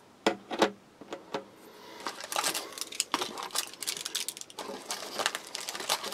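Handling noise from unpacking a military ration: a couple of light clicks as a small plastic tub is set down, then packets rustling and crinkling as hands rummage inside a cardboard box, a busy scatter of small crackles and taps.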